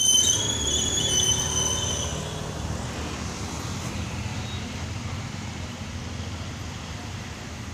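Steady low rumble of road traffic, with a high, wavering squeal over the first two seconds.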